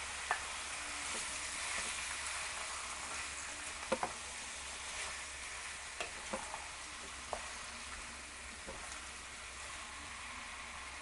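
Diced chicken and onions sizzling steadily as they fry in oil in a wok, with a few sharp taps scattered through.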